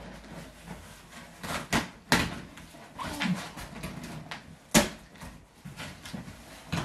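A large cardboard shipping box being handled and opened: a series of sharp knocks and cardboard rustles, the loudest about five seconds in.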